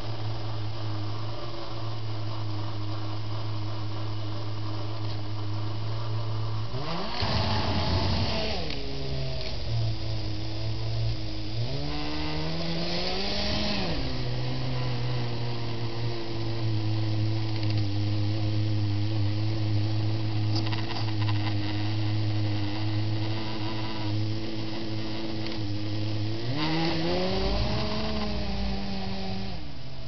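Electric drive motors and gearing of a Kyosho Blizzard RC tracked snow vehicle whining as it drives, the pitch gliding up and back down three times as it speeds up and slows, over a steady low hum.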